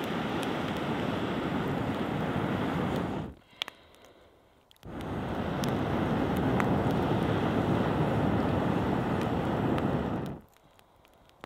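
Air rushing through a telescopic fire blower tube (a pocket bellows) into campfire embers. It comes in two long blows of several seconds each, with a short quiet pause between them for a breath, and a few faint crackles from the fire.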